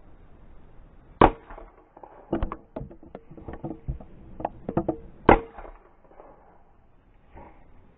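Two .22 LR rifle shots from a Savage 64F semi-automatic rifle, about four seconds apart, each a sharp crack. Between them comes a quick run of lighter clicks and knocks.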